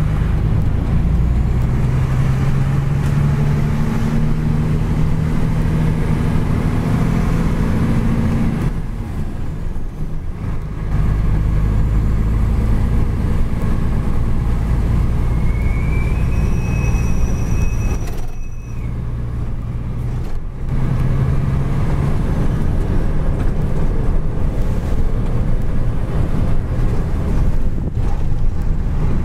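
Fuso self-loader truck's diesel engine running under way, heard from inside the cab, its low drone shifting in pitch with two short drops in level about nine and eighteen seconds in. A thin high whine rises and holds for about two seconds shortly before the second drop.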